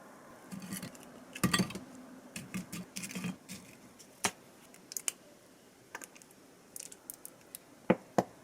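Light clicks, taps and clatter of kitchenware being handled: a busy spell in the first few seconds, then separate sharp clicks, two loud ones close together near the end.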